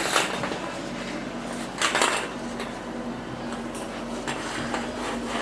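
Light clinking and clattering of hard objects being handled, in two bursts: one at the start and a longer one about two seconds in, with a few smaller clicks near the end, over a steady low hum.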